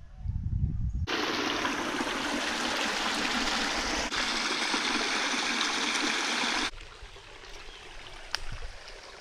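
Small rocky forest creek running and trickling over stones, heard close up. It starts suddenly about a second in and cuts off abruptly after about five and a half seconds, leaving a few faint clicks.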